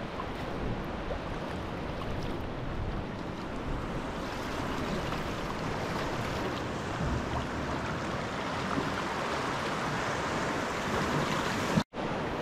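Sea swell washing and breaking against rocks at the foot of sea cliffs: a steady rushing of water. The sound cuts out for an instant near the end.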